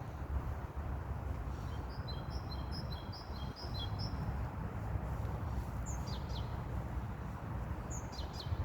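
A songbird singing: a quick run of about eight short, high chirped notes, then twice a few brief whistles sweeping downward, over a steady low background rumble.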